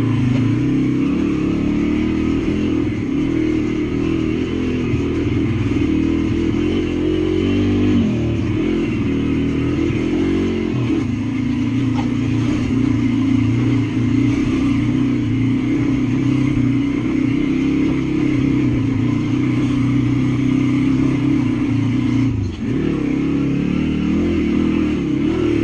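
Welsh Pit Bike's single-cylinder four-stroke engine running at steady throttle as the bike is ridden along a trail, with a brief dip in engine note about a third of the way in and again near the end.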